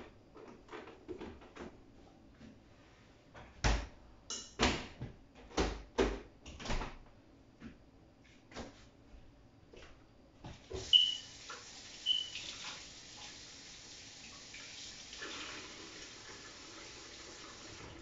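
A series of knocks and clatters of hard objects being handled, then a water tap starts running about eleven seconds in and keeps running, with two short squeaks near its start.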